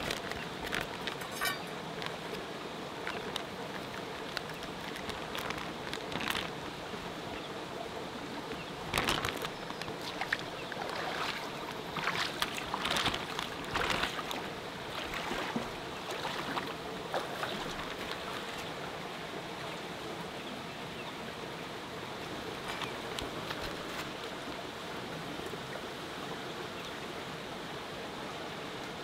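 River water running steadily, with a scattered run of sharp clicks and knocks clustered in the middle.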